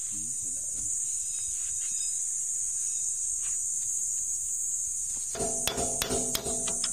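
Steady high-pitched insect buzzing throughout. About five seconds in, a run of quick, irregular metal knocks with a ringing tone begins: hammer blows on the concrete mixer's steel shaft as the new bearing is driven home.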